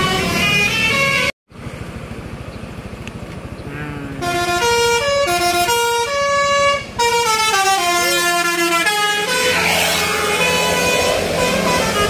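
Basuri 'telolet' multi-tone bus horn playing quick tunes of stepped notes. One tune breaks off abruptly just over a second in. After a stretch of lower engine-like sound, a second, loud tune starts about four seconds in, followed by a rushing noise with a few more horn notes near the end.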